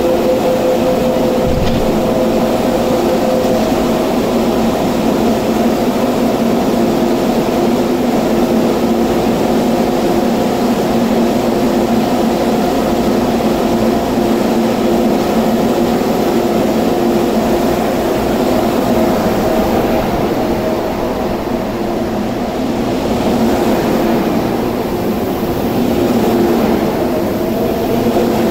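MTR Tung Chung Line train standing at the platform with a steady loud hum from its onboard equipment. Near the end it starts to pull away and the sound swells.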